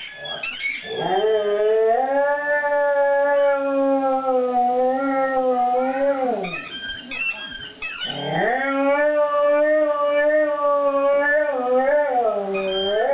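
Dalmatian howling: two long, wavering howls, the second starting about eight seconds in, with short high squeaky whines between them.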